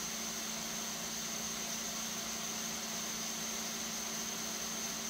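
3D printer's cooling fans running steadily while the print head sits paused after purging filament, an even whir with a steady low hum and a thin high whine.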